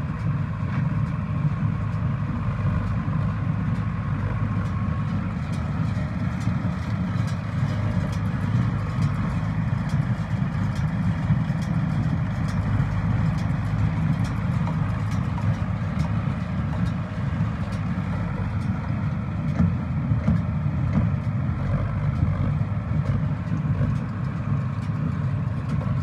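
Sonalika DI-750 tractor engine running steadily under load as it drives and pulls a Shaktiman small square baler through paddy straw. A quick regular run of light clicks from the baler's working mechanism runs over the engine sound from about a quarter of the way in.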